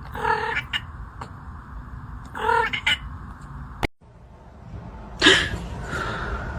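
A cat meowing twice, short calls about two seconds apart, followed by a brief noisy sound.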